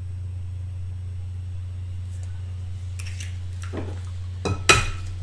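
Eggs being separated by hand over bowls: a steady low hum throughout, then a few light clinks of eggshell and bowls from about three seconds in, and a sharp knock near the end as the next egg is cracked on a bowl rim.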